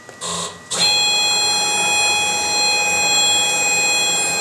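Stepper motors of a Quick-CNC K6100a router jogging the gantry along the table at a constant speed: a steady, high multi-tone whine that starts abruptly about a second in.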